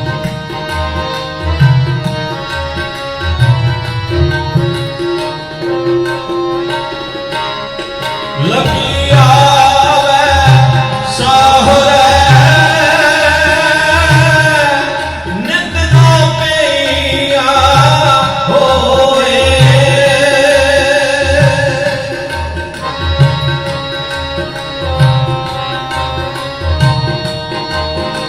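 Live Indian music: a steady hand-drum rhythm under sustained instrument tones. A louder wavering melodic line, most likely a singer's voice, comes in about eight seconds in and carries on in phrases until about twenty-three seconds in.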